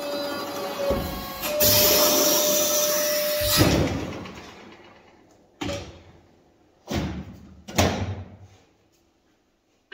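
Sheet-metal work on a stainless steel plate: a steady hum and a few seconds of loud scraping noise, then three heavy metallic clanks with a short ring, as the plate's cut edge is folded over into a thicker hem.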